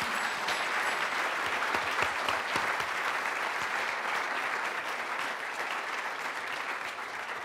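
Audience applause: a large seated crowd clapping steadily, thinning a little near the end.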